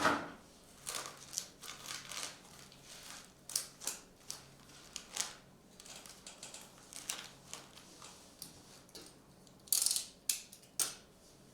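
Hobby boxes and foil card packs being opened and handled: an irregular string of short rustles, crinkles and clicks, with a louder cluster near the end.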